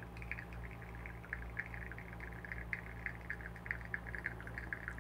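Espresso trickling from a Flair manual lever espresso maker into a ceramic cup, faint soft irregular ticking over a steady low hum.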